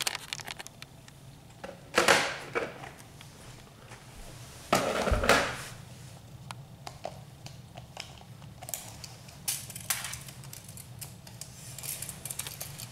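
Handling noises while the model loader is being measured: scattered small clicks and rattles of plastic and metal, with two short, louder scraping bursts about two and five seconds in.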